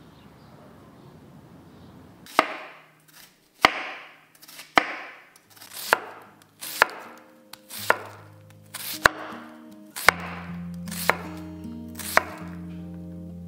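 Santoku knife chopping an onion on a wooden cutting board: about ten sharp chops, roughly one a second, starting a couple of seconds in.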